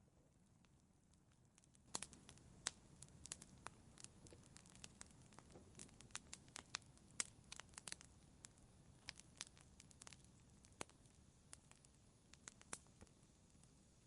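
Wood fire crackling in a fireplace: irregular sharp pops and snaps over a faint low rumble. The pops come thick from about two seconds in and thin out toward the end.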